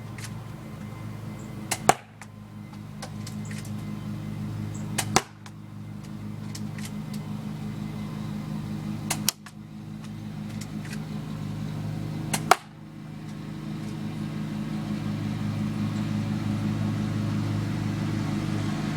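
UTG 1911 manual-cocking spring airsoft pistol fired four times, a sharp snap every three to four seconds, over a steady low hum that grows slowly louder.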